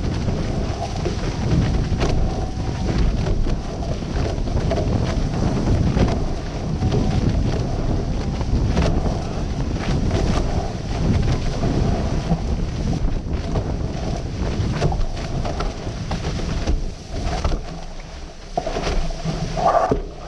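Wind buffeting the microphone and water rushing and splashing past the hulls of a racing catamaran sailing fast under spinnaker: a steady, heavy rumble. It eases for a couple of seconds near the end.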